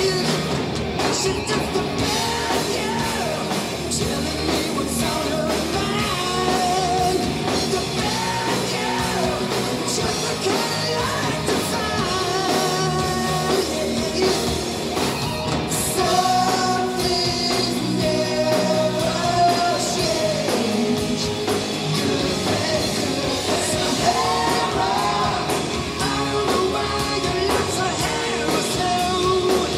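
Live hard rock band performing: a male lead singer sings over electric guitar, bass guitar and drums.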